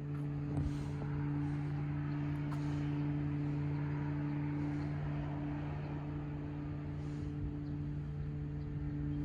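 A steady low mechanical hum, holding one pitch with an overtone above it, over a soft wash of background noise.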